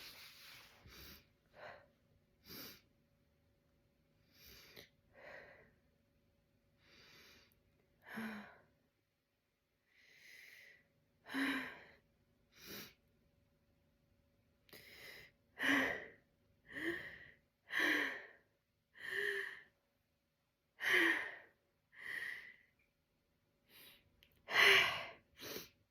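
A woman's sniffs and short hitching, breathy gasps as a sneeze builds but won't come out, her nose itching. The gasps come closer together and louder in the second half.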